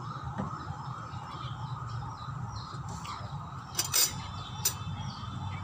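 Small birds chirping faintly over a steady low hum, with a sharp knock about four seconds in and another just after, as a plastic pitcher is set down on a wooden bench.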